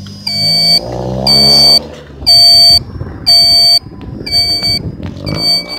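Motorized shopping cart's warning beeper sounding a steady series of loud half-second beeps, about one a second, the alarm of the cart driving in reverse.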